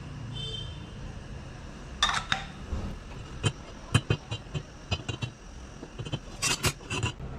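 Kitchen utensils clinking and scraping, a string of sharp clicks and knocks that starts about two seconds in and bunches up near the end, over a steady low hum.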